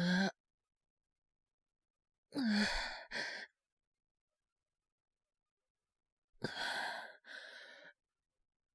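A man's heavy, breathy sighs, three of them a few seconds apart: one at the very start, one about two and a half seconds in and one about six and a half seconds in. Each begins with a short groan and trails off into a breathy exhale. They are the weary sighs of someone with a feverish cold and an aching body.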